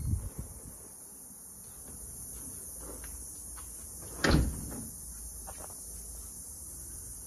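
Steady high-pitched insect buzz, with a few soft knocks from the back door swinging open at the start and one loud thump about four seconds in.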